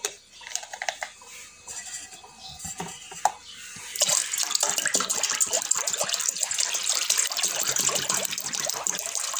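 Water poured from a plastic bottle into a steel bowl of lassi: a few light handling clicks, then a steady splashing pour that starts about four seconds in.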